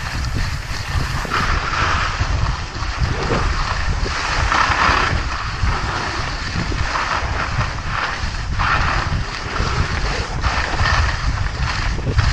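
Skis sliding and scraping over packed snow, the hiss swelling and fading every couple of seconds, under a steady rumble of wind buffeting the microphone.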